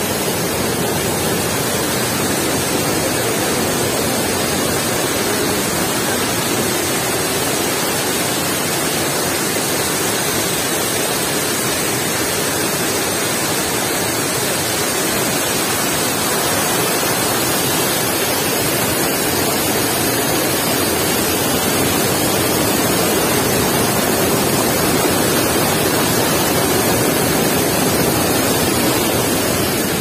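Waterfall water pouring over a rock ledge, heard close up: a loud, steady rush of falling and splashing water.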